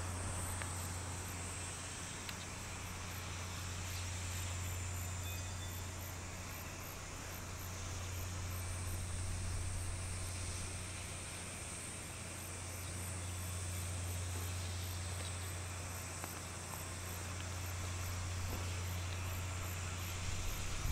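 Insects chirping high up in an evenly repeating pulse, over a steady low hum.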